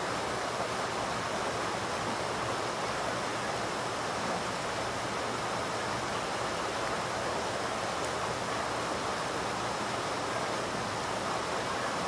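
Small fast-flowing stream rushing over rocks in little rapids: a steady, even rush of water.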